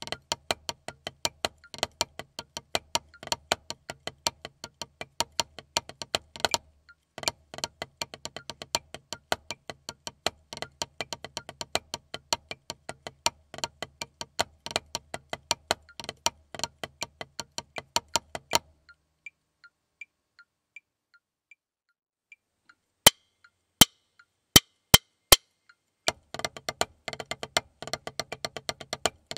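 Wooden drumsticks playing a rudimental snare-drum solo on a practice pad: fast dry taps, rolls and accents, with a short break about seven seconds in. The playing stops about two-thirds through, faint ticking follows, then four sharp evenly spaced clicks count in and the next solo starts on the pad.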